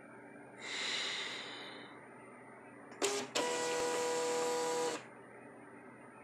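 A short hiss that fades away, then a Zebra LP2844 thermal label printer feeding and printing a shipping label. The feed motor gives a brief burst, pauses, then runs steadily with a whine for about a second and a half and stops abruptly.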